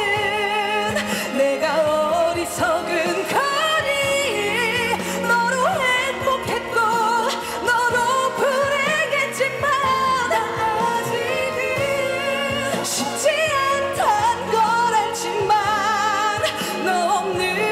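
A pop ballad with a woman singing long notes with vibrato over the instrumental accompaniment.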